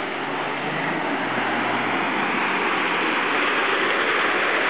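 Toyota LandCruiser four-wheel drive pushing through a flooded, muddy track. Its engine hum fades under a rush of churned-up water that grows louder toward the end as the vehicle comes close.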